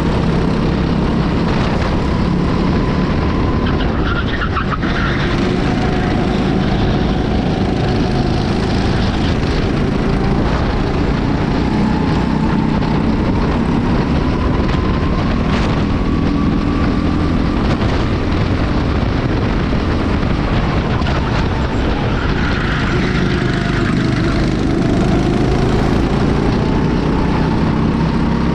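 Onboard sound of a Honda-engined racing kart at speed. The engine note rises and falls several times as the driver goes on and off the throttle through the corners. A steady low rumble and a few brief knocks run under it.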